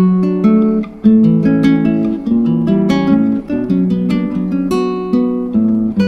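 Background music: an acoustic guitar playing a run of plucked notes.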